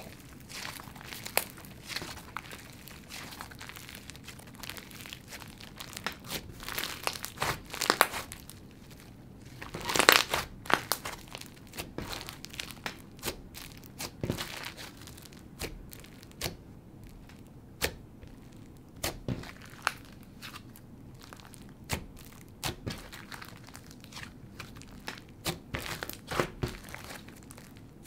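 Crunchy butter slushy slime with clay pieces and beads being stretched, folded and pressed by hand, giving soft crunches with many sharp pops and crackles. The loudest burst of crunching comes about ten seconds in.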